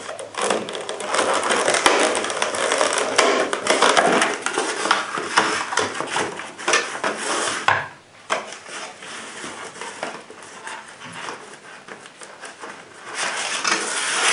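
Stiff clear plastic clamshell packaging being pried open and handled, a dense crackling and crinkling of rigid plastic. About two-thirds of the way in it drops to quieter rustling and light taps as the holster and paper inserts are taken out, then grows louder again near the end.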